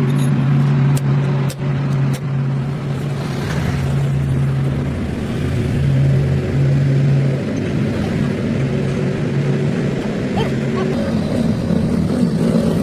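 An engine running steadily with an even hum, which fades somewhat after about seven seconds. There are a few sharp metallic clicks in the first two seconds.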